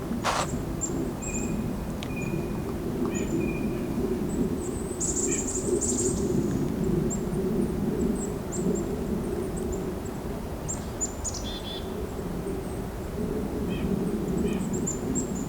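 Mixed winter flock of black-capped chickadees calling: many short, thin, high notes, with a few lower nasal calls of a white-breasted nuthatch early on. Underneath runs a steady low background rumble.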